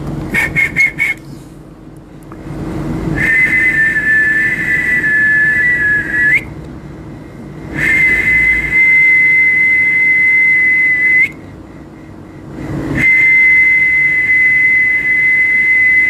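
A person whistling: a few short blips, then one long high note held steady for about three seconds at a time, breaking off twice briefly and starting again, each note ending with a slight upward flick.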